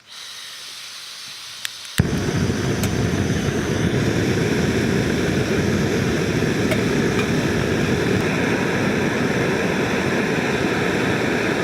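MSR PocketRocket gas canister stove: gas hissing from the opened valve, then lit with a sharp pop about two seconds in, after which the burner flame runs with a loud, steady rushing noise, heating water.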